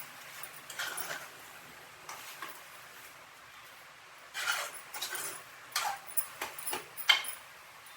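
Spatula scraping and clinking against the pan as chicken pieces are stirred and sautéed in their masala, in irregular strokes that come thicker in the second half, the loudest near the end.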